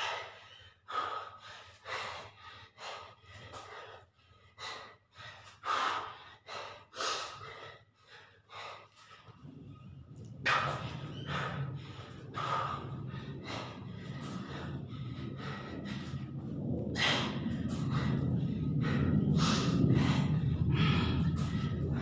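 A man breathing hard, winded from push-ups: quick, sharp gasps and exhales one after another. About ten seconds in, a steady low hum starts and grows louder underneath.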